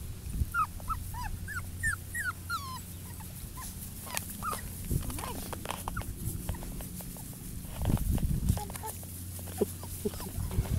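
Four-week-old puppies whimpering: a run of short, high, falling whines in the first few seconds, then scattered ones, among small clicks. A louder low scuffle comes about eight seconds in.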